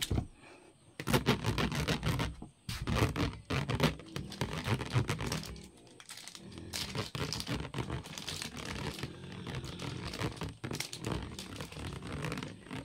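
Irregular scratching, scraping and crackling noises in loud, dense bursts, broken by a few short quieter gaps.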